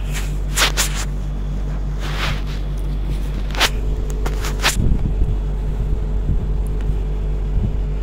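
Handling noise: a few short clicks and rustles as goods and the phone are handled, over a steady low hum, with low bumps near the middle and a faint steady tone joining about halfway.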